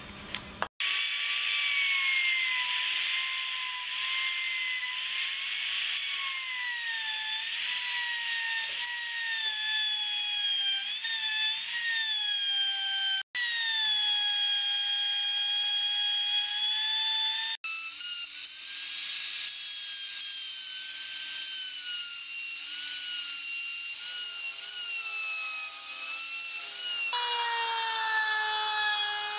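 Trim router running at full speed with a high motor whine whose pitch wavers and sags as the bit cuts through pine boards. The sound breaks off abruptly three times and picks up again at a different pitch.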